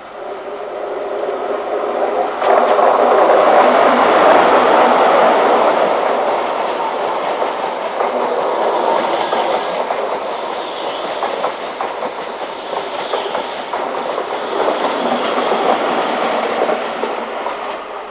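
A test train running through a station. It grows louder over the first couple of seconds, then keeps up a long steady rumble of wheels clattering over the rail joints, with bursts of high hiss through the middle.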